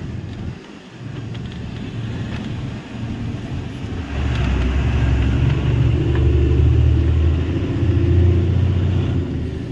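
Truck engine and road noise heard from inside the moving cab: a steady low rumble that grows louder about four seconds in, with a steady engine note after that.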